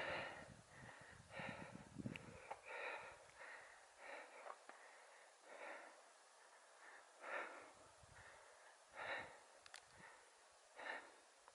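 Faint, heavy breathing of a hiker walking uphill, a breath roughly every one to two seconds.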